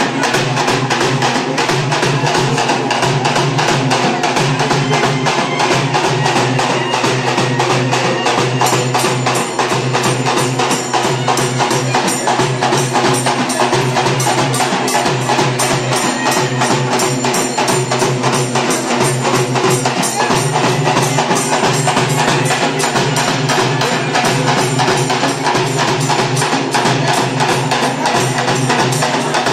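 Fast, steady drumming that keeps going without a break.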